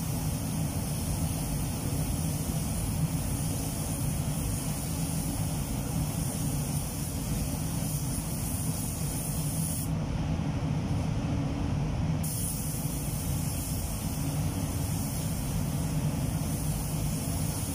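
Compressed-air gravity-feed spray gun hissing steadily as it sprays clear coat onto a car panel, over a steady low rumble. The hiss cuts out for about two seconds near the middle, then resumes.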